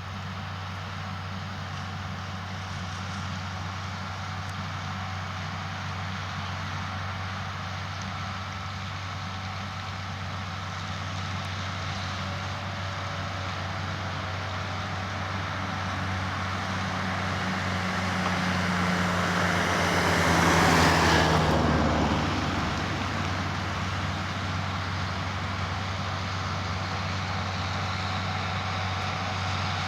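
Engines of a Dewulf potato harvester and a John Deere tractor running steadily. The sound grows louder as the machinery passes close by about two-thirds of the way through, then eases off.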